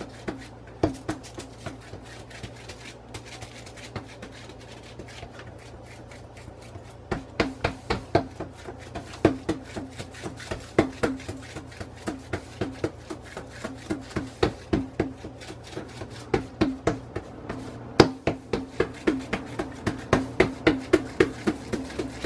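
A hand patting and pressing a large corn-masa tortilla flat on a plastic sheet over a countertop: soft pats, a few at first, then a steady run of about two a second from about seven seconds in.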